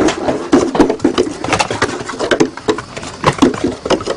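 Baby goats' hooves clattering on a wooden deck as they bounce and skip about: rapid, irregular hollow knocks.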